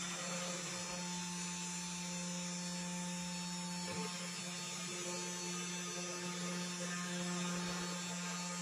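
Spindle motor of a small 1610 desktop CNC router running steadily at speed, a steady hum, while the machine starts its cutting job on a piece of timber.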